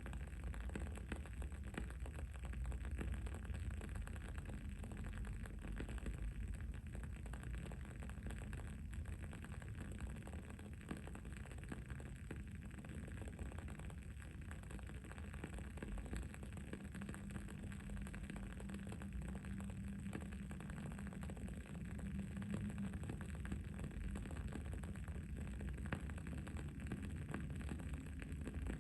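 Wooden candle wick crackling as it burns, a steady run of small pops and ticks over a continuous low rumble.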